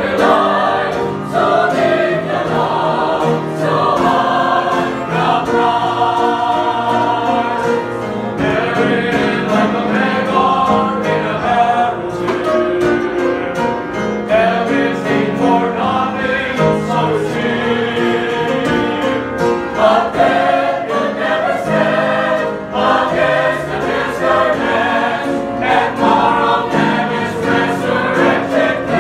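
Church choir of men and women singing a hymn together, holding long notes that move from chord to chord.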